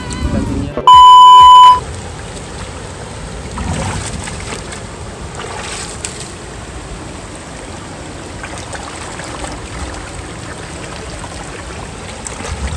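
A loud, steady electronic beep tone lasting about a second, a little after the start. After it comes the steady rush of a shallow river running over rocks.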